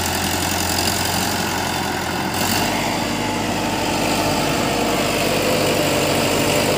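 Sonalika tractor's diesel engine running steadily while hauling a trailer loaded with bricks; its low note changes about two and a half seconds in.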